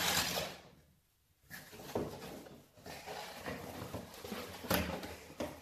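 Rustling and knocking from a merchandise box and its packaging being handled as a football is taken out, with a sharp knock about one and a half seconds in and another near the end.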